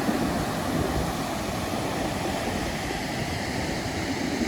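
Steady rushing of a waterfall's water, an even noise strongest in the low range.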